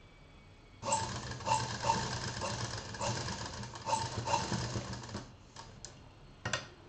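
Domestic sewing machine running, stitching a seam through fabric for about four seconds with an uneven, pulsing speed, then stopping. A few sharp clicks follow near the end.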